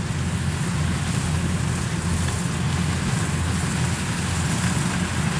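Kubota DC-93 rice combine harvester running steadily under load as it cuts and threshes standing rice: a constant diesel engine hum with an even mechanical hiss over it.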